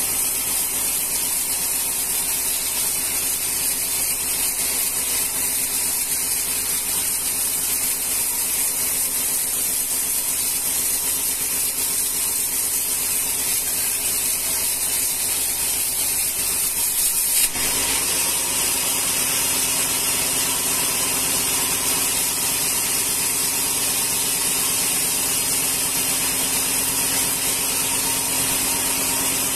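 Band sawmill running, its blade ripping a rengas log lengthwise into planks with a steady, hissing whine. A little over halfway through there is a sharp knock, after which the sound turns fuller, with a steady hum underneath.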